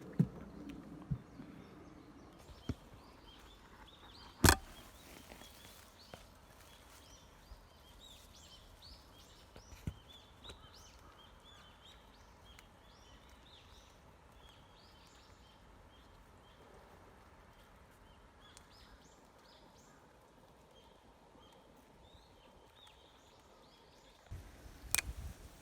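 Faint outdoor ambience with many short, high chirps of small birds through the middle, and a few sharp clicks, the loudest about four seconds in.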